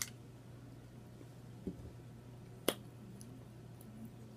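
Quiet mouth sounds while eating: a small click at the start, a soft thump, then one sharp lip smack about two and a half seconds in. A steady low hum runs underneath.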